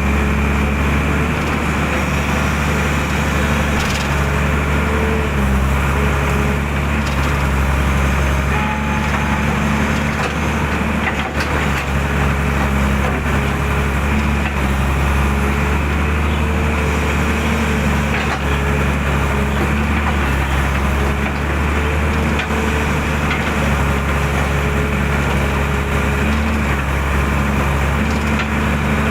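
Excavator's diesel engine running steadily under working load, a constant hum whose pitch shifts slightly now and then, with a faint knock about eleven seconds in.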